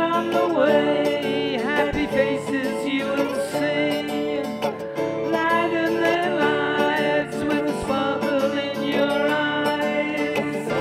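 A song with plucked acoustic guitar and a singing voice.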